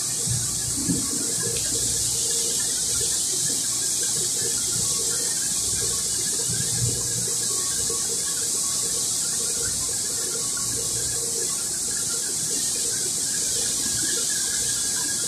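Steady hiss throughout with a faint hum beneath it, and a couple of light clicks, about a second in and again near the middle, as the electric drill's armature and brush parts are handled.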